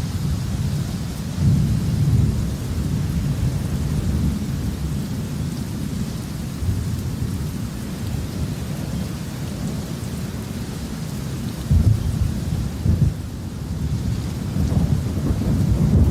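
Thunder rumbling over steady rain. The rumble swells about a second and a half in, gives two sharper claps around twelve and thirteen seconds in, and builds again near the end.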